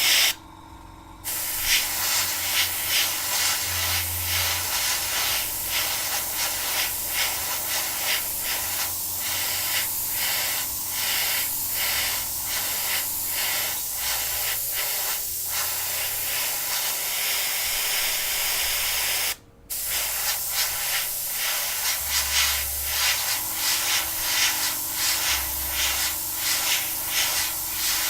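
Airbrush hissing steadily as it sprays paint, the hiss wavering in quick even pulses and cutting out briefly twice, just after the start and about two-thirds of the way through, as the air is shut off and resumed.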